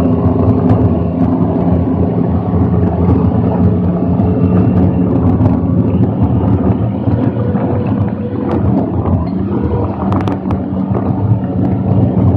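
M113A1-based armoured reconnaissance vehicle on the move: the steady drone of its Detroit Diesel 6V53 two-stroke V6 diesel heard from the open turret, with scattered sharp clanks and rattles, a cluster of them a little after the middle.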